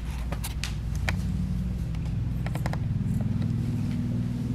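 Grooming shears snipping a few times as they trim the hair around a dog's ear, over a steady low buzz.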